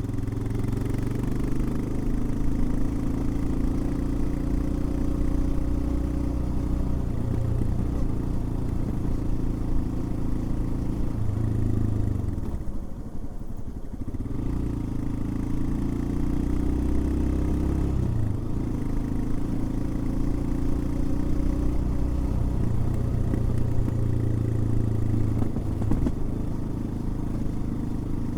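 Royal Enfield Himalayan's single-cylinder engine running under way, its note rising and falling with the throttle. About halfway through it eases off for a second or two, then pulls again.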